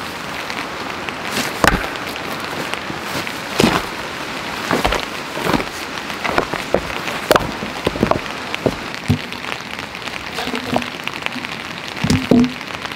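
Heavy rocks being set down and shifted on stony ground, with scattered knocks and scrapes, and near the end a log laid onto the stone pile with a hollow wooden knock. A steady rushing of water underlies it.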